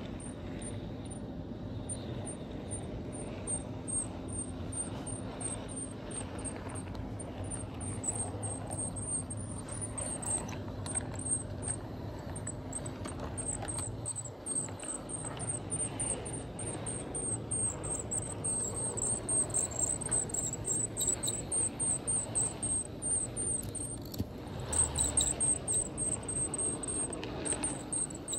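HO scale model train running along its track: a steady low hum with a high squeaky chirp repeating about three to four times a second, the chirps coming faster and louder in the second half.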